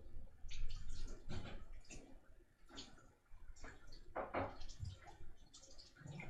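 Homemade slime being squeezed and handled, giving irregular wet squishes and small pops.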